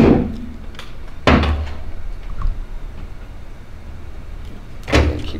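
A few dull knocks and clunks of a camera and a work light being handled and repositioned: one right at the start, another about a second in, and one near the end, with quiet background hum between.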